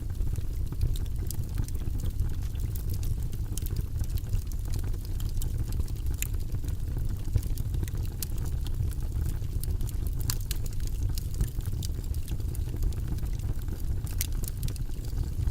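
Logs burning in a fireplace: a steady low rumble of flames with frequent irregular crackles and sharp pops from the wood.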